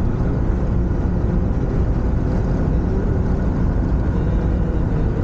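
Steady engine and road noise inside the cab of a Nissan NV200-based camper van driving along at a constant pace, with a faint wavering hum over a low rumble.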